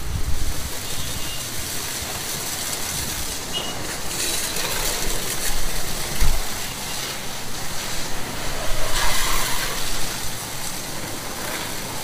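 Pressure washer spraying water onto a car, a steady hiss with spells where the spray gets louder.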